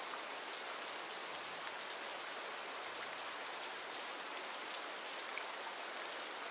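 Steady rain falling in a forest: an even hiss of drops that holds at one level throughout.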